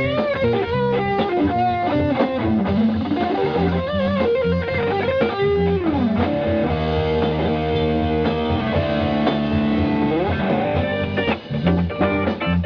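A rock band playing: electric guitar leads over bass guitar and drums, with bent and sliding guitar notes, a slide down about six seconds in, held chords after it, and a slide up near ten seconds.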